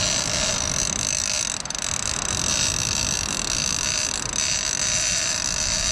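Small ocean surf washing onto the beach, a steady hiss with a low rumble underneath.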